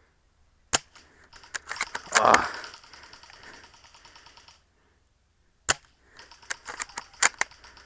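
ARES AW .338 spring-powered bolt-action airsoft sniper rifle being fired, with sharp snaps and the clacking of the bolt being cycled between shots. There is a louder burst about two seconds in and a short pause near the middle.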